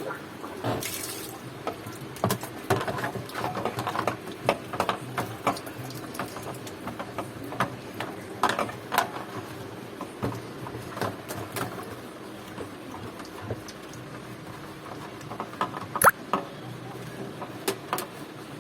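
Hand-cleaning a washing machine tub: water splashing and dripping, with many irregular clicks and knocks as it is scrubbed and rinsed.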